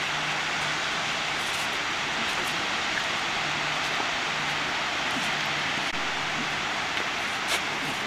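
Steady rush of a waterfall, an even hiss with a faint low hum coming and going, and one brief click near the end.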